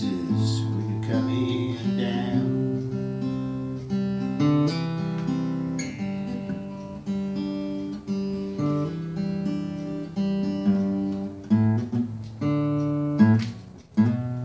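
Yamaha acoustic guitar played solo, chords strummed and picked with a change of chord every second or so, briefly dropping out shortly before the end.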